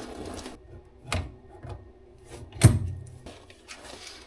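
A few knocks and light clatter of parts being handled, with one sharp knock about two and a half seconds in as the loudest.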